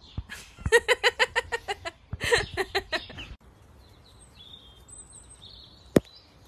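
Duckling peeping in a quick, loud run of calls. About three seconds in it gives way to fainter, higher peeping from ducklings, with a single sharp click near the end.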